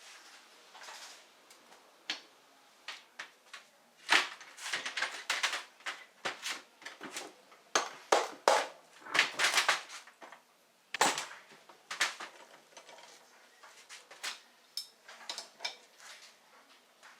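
Irregular sharp metallic clicks and clanks of hand tools working on a motorcycle engine's aluminium crankcase as the halves are being split. The clicks come thickest in the middle of the stretch and thin out near the end.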